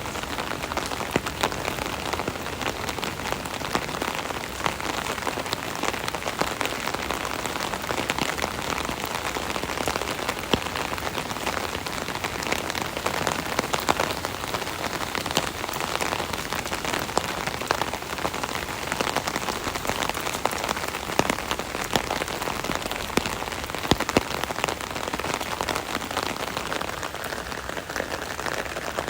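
Rain drumming on an umbrella canopy overhead: a dense, steady patter of drops with many sharp individual taps.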